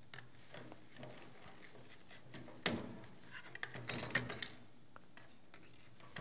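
Flat screwdriver prying at the case of a small portable TV, making scattered faint clicks and scrapes as the top cover is levered loose; they come thickest from about two and a half seconds in.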